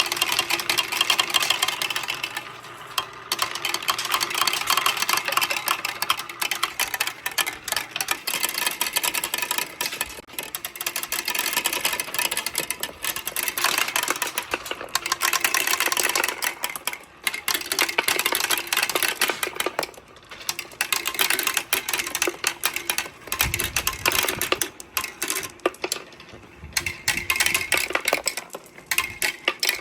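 A rapid, continuous clatter of many marbles running down a marble run: balls clicking against each other and striking metal parts with a slight metallic ring, with a few dull low thumps about two-thirds through.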